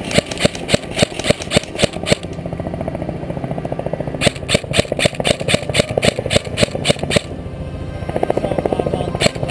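Helicopter rotor chopping in a steady beat of about four thuds a second over a low hum, coming in two spells with a brief let-up between them.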